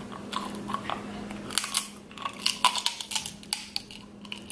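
King crab leg shell being cracked open with the teeth: a run of sharp, irregular cracks and crunches.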